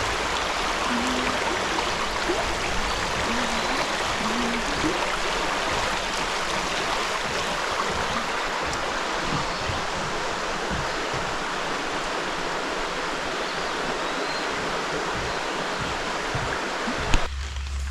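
Creek water rushing steadily. It cuts off abruptly near the end.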